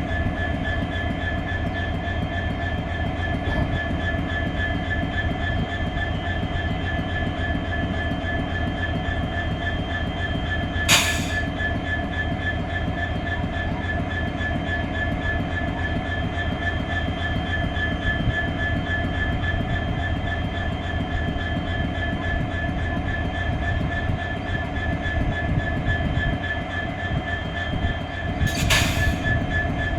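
EMD-built WDG4 diesel-electric locomotive idling: its 16-cylinder two-stroke diesel gives a steady low hum with a constant whine over it. Two brief bursts of hiss cut in, about a third of the way in and again near the end.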